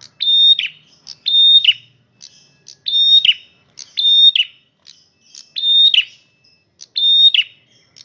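A male prenjak merah, a small Javanese songbird, calling loudly. It repeats the same short phrase about once a second, roughly seven times: a sharp note, then a held high whistle that drops at its end.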